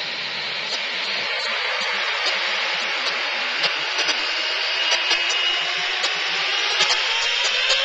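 Boeing 747-8's four GEnx turbofan jet engines running on the runway: a steady jet hiss with a high whine, growing slightly louder, with a tone rising in pitch near the end as the engines spool up.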